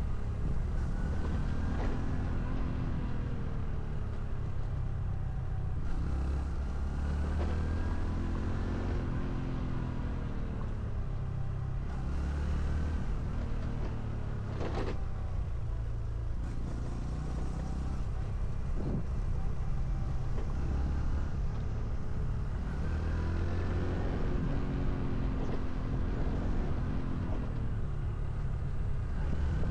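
Honda CT125 Hunter Cub's air-cooled single-cylinder four-stroke engine running on the move. Its pitch rises and falls several times as it speeds up and changes gear, over a steady low rumble, with a couple of brief knocks near the middle.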